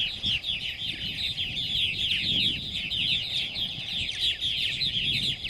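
Purple martin colony calling: a dense, continuous chatter of many short, quick, falling chirps overlapping one another.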